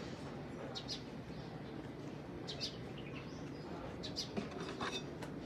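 Small birds chirping, short high chirps about once a second, over a steady low hum. A few light clicks come about four seconds in.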